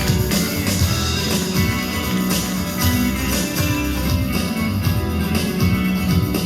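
Dance music with a steady beat, accompanying a stage dance number.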